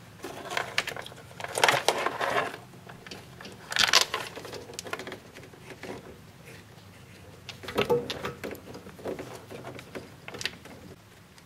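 Wires and plastic parts being handled: irregular rustling, scraping and a few clicks as an HID xenon bulb and its leads are twisted into a car's headlight housing.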